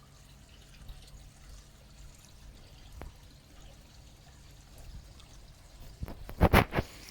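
Koi pond water trickling and pouring steadily and faintly. A sharp click about three seconds in, and a few loud thumps near the end.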